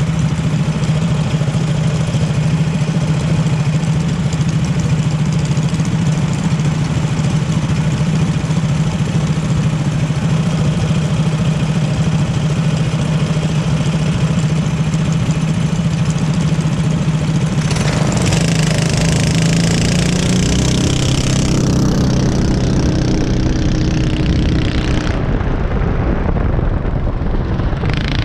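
Small racing car engines idling steadily at the start line, then revving and accelerating away about eighteen seconds in, with a rush of noise as the car picks up speed.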